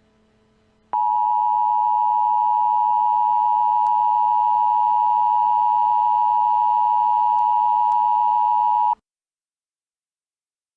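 Emergency Alert System two-tone attention signal: a loud, steady electronic tone that starts abruptly about a second in, holds for about eight seconds and cuts off sharply.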